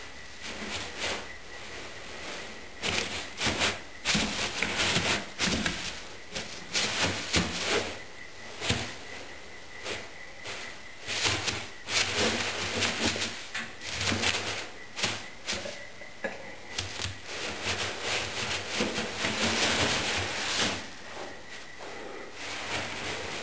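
Polystyrene bean bag beads rustling and crackling as a kitten burrows and pounces through them, in irregular bursts that come and go, quieter near the end.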